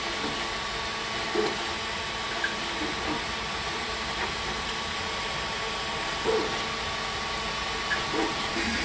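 Creality Ender 3D printer running a print: a steady hiss of its fans and motors with a faint steady whine, broken by a few brief, slightly louder blips.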